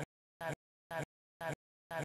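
A short snippet of sound, a fraction of a second long, repeating about twice a second with dead silence between: a stuck, looping audio glitch.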